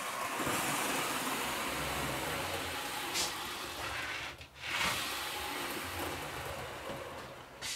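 OO gauge model coaches pushed by hand along trial-laid track, their wheels rolling on the rails with a steady rushing noise that breaks off briefly about four and a half seconds in, then resumes. The coaches run quite smoothly through a tight fourth-radius curve.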